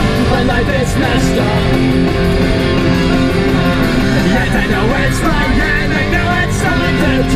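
Music with guitar playing.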